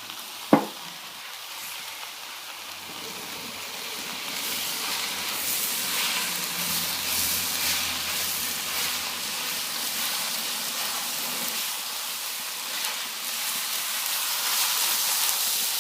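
Beef chow fun (wide rice noodles, beef and bean sprouts) sizzling and frying in a hot wok; the sizzle swells a few seconds in and stays loud with fine crackling. A single sharp knock sounds about half a second in.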